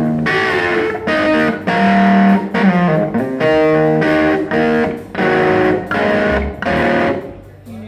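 Distorted electric guitar playing a run of short chords, each cut off with a brief gap before the next. The guitar stops and the sound dies away near the end.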